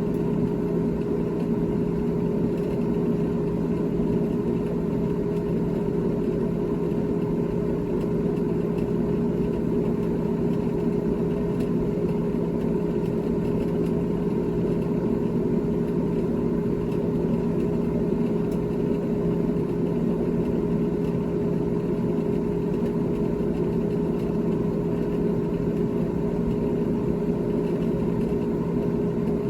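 GE GTH18XCTZRBB top-freezer refrigerator running: a steady mechanical hum with a few held low tones that does not change.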